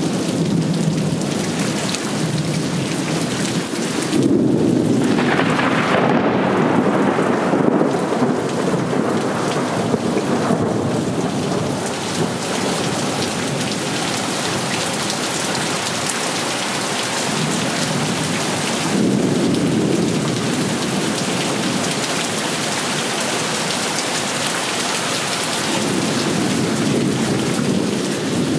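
Heavy rain pouring steadily, with low thunder rumbling up three times: about four seconds in, near the middle and near the end.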